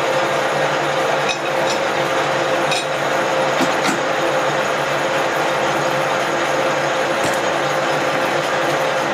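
Large milling machine running, a steady mechanical hum with a constant gear whine, its three-phase motor fed from a VFD. A few sharp metallic clicks sound over it, once about a second in, twice near three to four seconds and once past seven seconds.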